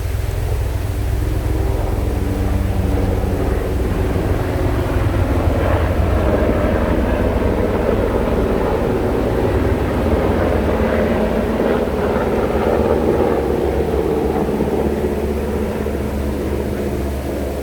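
A continuous engine drone with a low rumble and a steady pitched hum, swelling through the middle and fading near the end.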